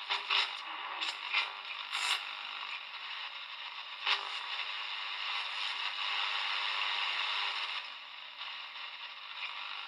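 Small portable AM radio's speaker hissing with static while its tuning wheel is turned by hand between stations, with brief crackles and fragments in the first two seconds and a sharp click about four seconds in.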